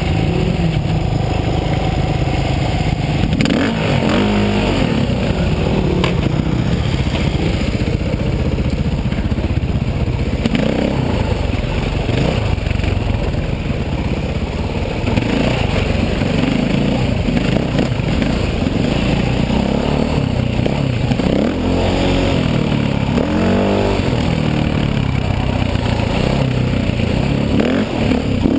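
KTM 450 XC-W dirt bike's single-cylinder four-stroke engine running under load on a trail ride, its pitch rising and falling several times as the throttle is opened and closed.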